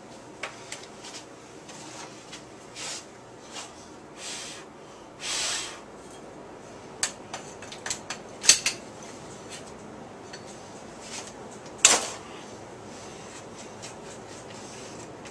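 A pump shotgun's polymer fore-end being worked against a heat shield to test the fit: scattered sharp plastic-and-metal clicks and knocks with a few short scraping slides. The sharpest clicks come a little past halfway.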